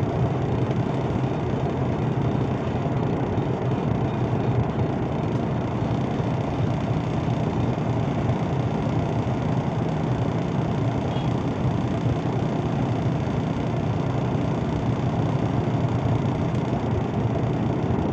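Truck diesel engine idling steadily, heard from inside the cab.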